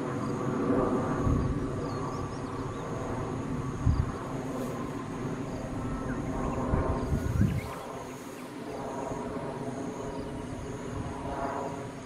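Steady mechanical drone of a distant engine, with a faint high whine pulsing on and off above it and a few low thumps.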